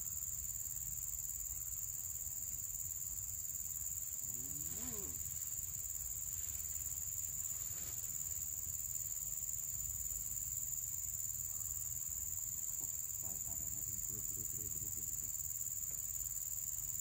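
Steady, unbroken high-pitched drone of insects, over a low rumble, with faint brief voices around five and thirteen seconds in.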